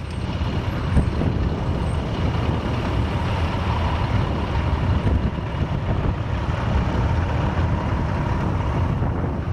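Steady low rumble of wind buffeting the microphone of a camera mounted on top of a moving velomobile, mixed with street traffic noise.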